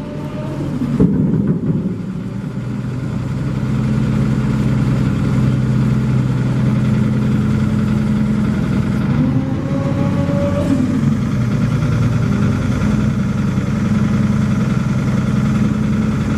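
An engine running steadily, getting louder over the first few seconds and then holding even, with two short rising whines.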